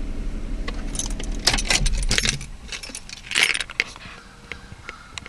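A key ring jangling as the ignition key is turned and pulled from the steering column of a 2002 Chrysler Sebring. The rebuilt 2.7 V6 idles with a steady low hum that stops about two and a half seconds in, and the keys jingle again shortly after.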